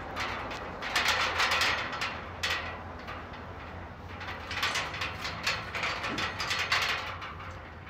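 A slatted gate rattling and clattering as someone climbs over it, in two bouts: one about a second in and another past the middle.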